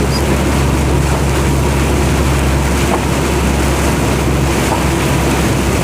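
Steady engine drone and road noise inside a moving vehicle's cab, a constant low hum under a rushing hiss.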